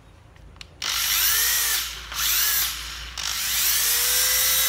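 Hitachi 100 V electric screwdriver run on its trigger three times after about a second of quiet. Each time the motor whine rises as it spins up and drops away quickly when the trigger is let go, as its brake stops it. The last run is longer and holds its speed.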